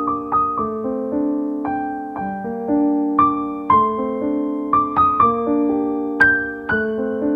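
Background piano music: single notes and chords struck about once or twice a second, each ringing on as the next comes in.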